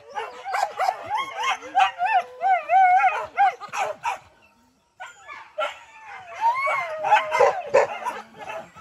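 Several hunting dogs barking and yelping rapidly, with wavering high whines about two seconds in and a gliding whine around six seconds; the calls stop briefly just after the middle. The dogs are excited at cover in a wild boar hunt.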